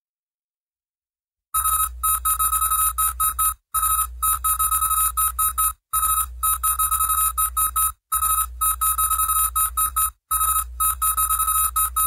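An electronic ringing tone, a fast-pulsing beep at one pitch over a low hum, comes in about a second and a half in. It sounds in bursts of about two seconds with short breaks between, five times.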